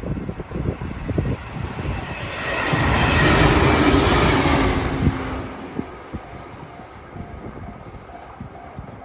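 A train passing at speed: a rushing swell that builds about two and a half seconds in, peaks for a second or two and fades by about five seconds in. Wind buffets the microphone before it.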